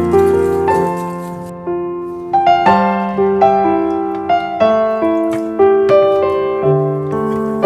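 Background music: a gentle melody played on piano or electric piano, notes struck in an even rhythm and ringing away between strikes.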